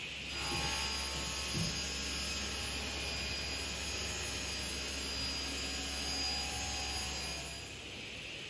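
Altendorf sliding-table panel saw running and cutting wood, a steady machine whine that starts just after the beginning and drops away near the end, with a brief knock about one and a half seconds in.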